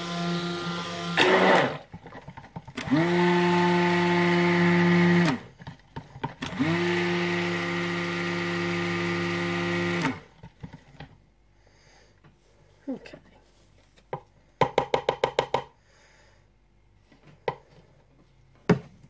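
Handheld stick blender blending fig purée into olive oil in a plastic jug. It runs in three bursts: it stops about a second in, then runs for a few seconds, stops, and runs again for a few seconds, spinning up in pitch at each start. After that come a few light knocks and a quick run of taps.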